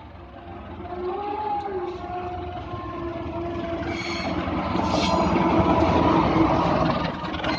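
Sembrani passenger train passing, with a steady low tone under a rushing rail noise that grows louder and peaks about five to seven seconds in.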